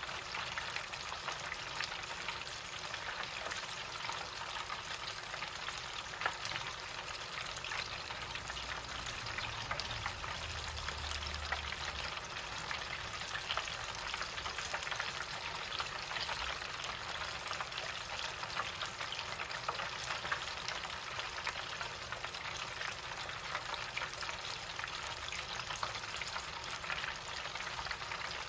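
Chicken pieces deep-frying in hot oil in an electric countertop fryer: a steady, dense crackle and sizzle.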